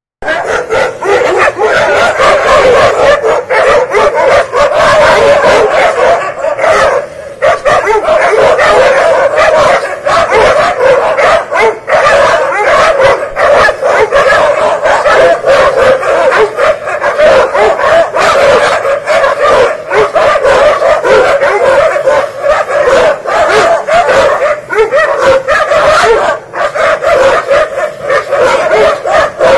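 A pack of street dogs barking and yelping at one another, many at once and almost without pause, in a territorial standoff between two groups. There is a brief lull about seven seconds in.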